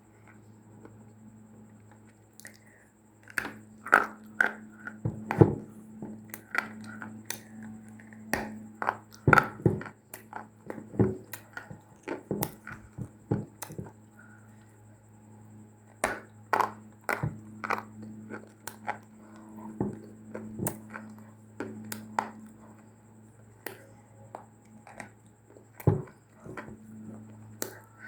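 Dry clay (mitti) being bitten and crunched close up: a long run of sharp, irregular crunches, denser through the middle, over a steady low hum.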